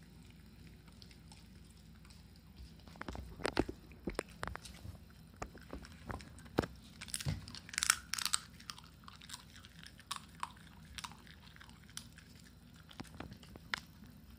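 Shiba Inu chewing jerky treats: an irregular run of crisp crunches and bites that starts about three seconds in and thins out near the end.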